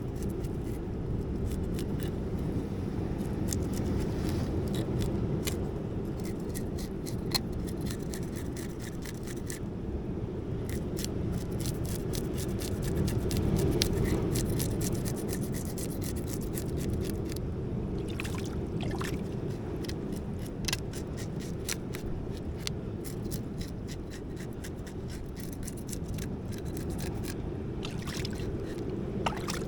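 Steady low rumble of rough sea water against the rocks, with scattered light clicks and scrapes throughout.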